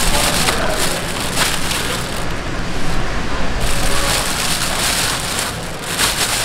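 Thin black plastic bag rustling and crinkling in uneven bursts as it is pulled open by hand.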